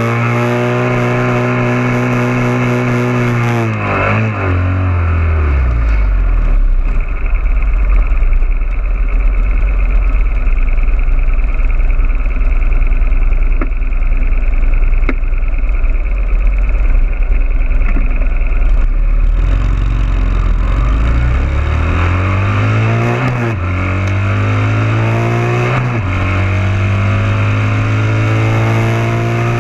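Motorcycle engine heard through a bike-mounted camera. It winds down in pitch about four seconds in, then idles low for about fifteen seconds. It then pulls away, rising in pitch twice with a dip at a gear change between, and runs steadily near the end.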